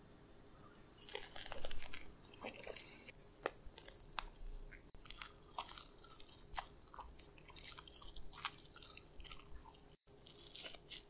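Irregular crisp crackling and crunching of a soufflé omelette's browned crust as it is broken apart with chopsticks and eaten.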